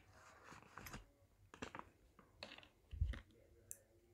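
Faint, scattered clicks and light taps of chopsticks and a plastic packet against a bowl as dehydrated sea grapes are emptied into it, with one soft low knock about three seconds in.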